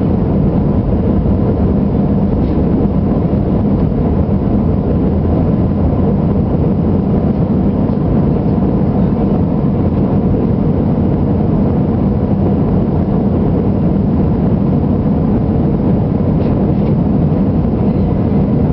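Airbus A320 jet airliner's engines and airflow making a steady, loud, low drone during its takeoff climb, with faint steady tones above the rumble.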